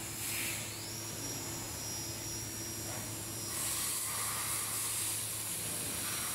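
Steady machinery hum with high hiss, typical of machine-shop equipment running in the background; the hiss swells briefly twice.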